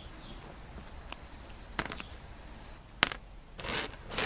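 Wire cutters snipping crimp connectors off the ends of a wiring harness: a few sharp clicks about a second, two seconds and three seconds in, with rustling of the wires and loose connectors between.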